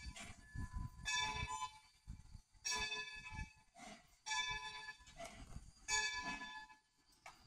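Locomotive bell ringing slowly and evenly, about one stroke every second and a half, each stroke ringing on and fading before the next, as the train moves.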